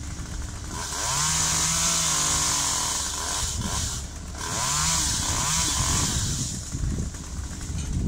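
A chainsaw revving up and cutting in two bursts of about two and a half seconds each. Its pitch rises and falls within each burst, with a break of about a second between them.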